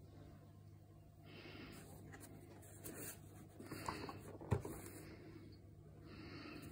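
Cardboard box being handled and turned over in the hands: soft rubbing and scraping of cardboard, with one sharp knock about four and a half seconds in.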